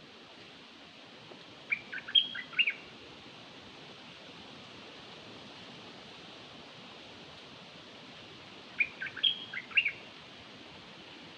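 Two short phrases of song from the bird known in Thai as nok dok taeng, each about a second of quick high notes, about two seconds in and again near the end, over a steady hiss. It is a lure call of the kind played by bird catchers to draw the bird in.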